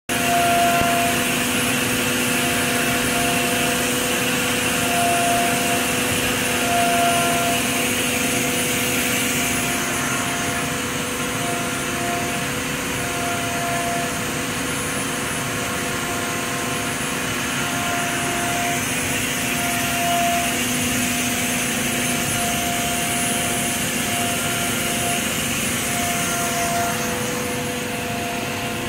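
Colibri JETiger coolant-driven turbine spindle spinning at about 21,000 RPM while milling, over a steady hiss of high-pressure coolant spray. Several steady tones run through it, and one higher tone comes and goes in short spells.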